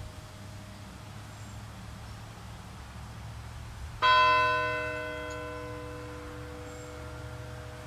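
A bell struck once about four seconds in, ringing with several clear tones that slowly die away; the low hum of an earlier strike is still ringing before it.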